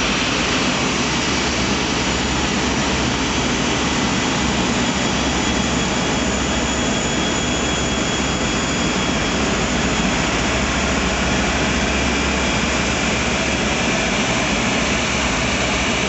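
Airbus A380's four jet engines running at taxi thrust as the airliner rolls past: a steady jet rush with a thin high whine over it.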